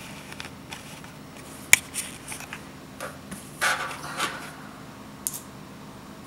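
A sharp click, a few light ticks, and a short mechanical buzz in the middle: an SG90 micro servo pushing a camcorder's zoom rocker when its control button is pressed.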